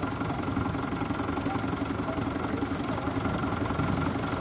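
Vintage tractor engine running steadily with threshing machinery working alongside, a continuous fast-pulsing mechanical drone.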